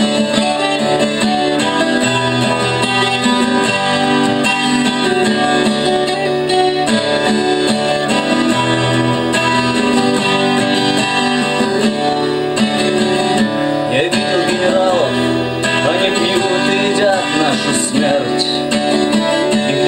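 Twelve-string acoustic guitar made by the Lunacharsky factory in 1978, strummed with a pick through a chord progression.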